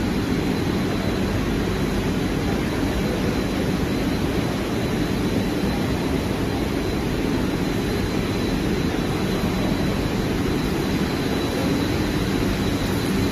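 5-axis CNC tool grinding machines running: a steady, unchanging mechanical hum, heaviest in the low range, with a faint steady high whine over it.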